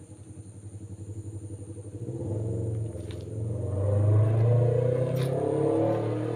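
A motor vehicle's engine running and growing louder from about two seconds in, a low pulsing hum.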